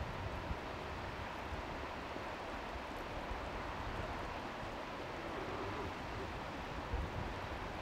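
Steady outdoor background noise with no distinct events, and a faint, short low tone about five and a half seconds in.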